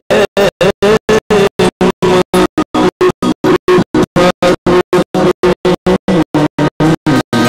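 Live band music with a man singing over keyboard accompaniment. The audio cuts in and out in a regular stutter, about five silent gaps a second, a dropout fault in the recording.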